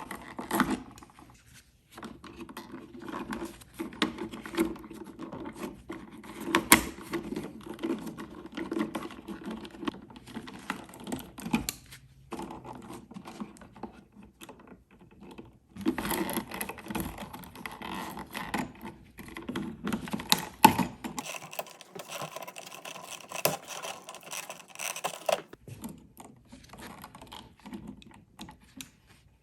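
Irregular clicks, taps and rustles of hands working the wires and the old switch in a wall electrical box, fishing out the tucked-in green ground wire.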